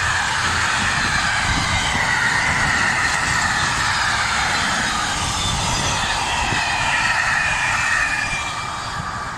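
Intermodal freight train's loaded container flat wagons rolling past close by, a steady rumble and hiss of wheels on rail with wavering whistle-like tones from the wheels. The noise drops away near the end as the last wagon passes.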